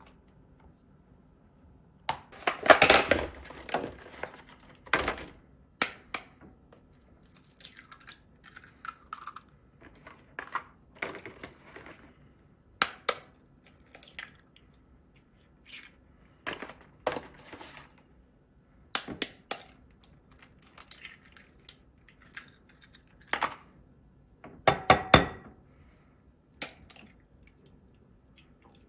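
Kitchen handling sounds: scattered knocks, clicks and clinks of utensils and dishes, with short rustling and scraping, loudest about three seconds in and again near the end.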